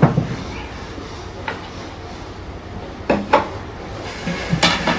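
A few scattered clinks and knocks of tableware. They come singly near the start and again a second and a half in, then in small clusters about three seconds in and near the end, the last the loudest.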